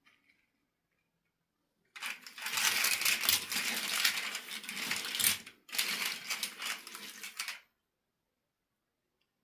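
Dense clattering of many small hard pieces, in two bursts: one of about three and a half seconds, then after a short break one of about two seconds.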